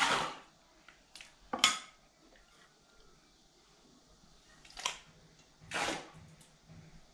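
A metal ladle and spoon scooping whey off soft soybean curd in a cloth-lined wooden tub: four short scooping and clinking sounds, the loudest about one and a half seconds in.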